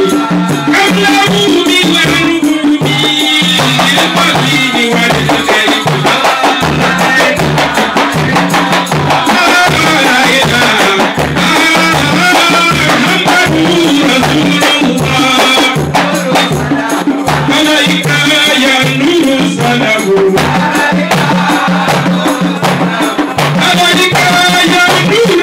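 Several frame drums beaten by hand in a steady, repeating rhythm, with a man's voice chanting over them through a microphone and loudspeaker.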